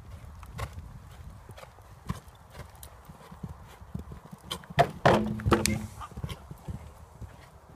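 Horse cantering on a sand arena, its hoofbeats landing as soft, irregular knocks. About five seconds in there is a louder burst with a brief low tone.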